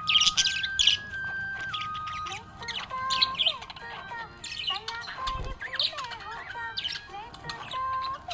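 Budgerigars chirping in quick, sharp repeated calls, with busier warbling chatter from a couple of seconds in.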